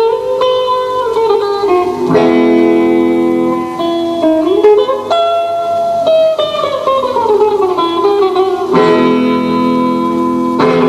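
Guitar music playing a melody of held notes, with a long downward slide of pitch in the middle.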